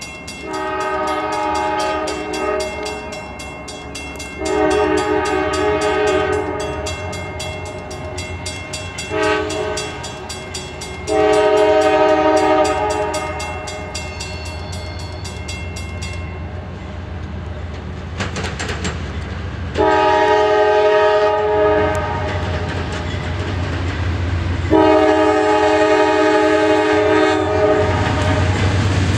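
A CSX diesel locomotive's multi-chime air horn sounds the grade-crossing signal (long, long, short, long) as the train approaches, over a steadily ringing bell and the low rumble of the diesel engine. The bell stops about halfway through. Later two more long horn blasts come from a locomotive passing a road crossing.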